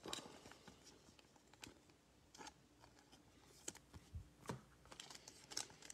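Near silence, with a few faint, scattered clicks and rustles of trading cards being handled and shuffled.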